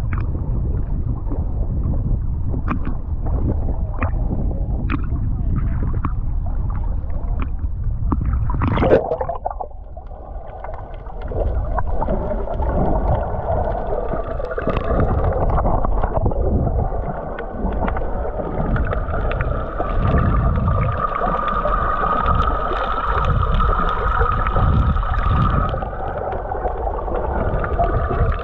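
Sea water slapping and splashing over a camera held at the surface, with sharp little clicks. About nine seconds in it goes under with a splash. The sound turns muffled, with low gurgling and a steady hum of boat engines carried through the water.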